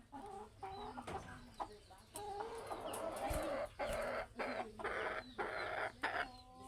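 Birds calling in many short, repeated low calls that overlap, with denser noisy stretches in the middle few seconds.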